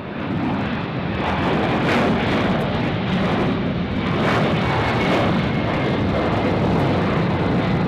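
Boeing 767-400 airliner climbing out after takeoff, its jet engines giving a loud, steady roar with a faint high whine on top. The roar swells briefly at the start, then holds level.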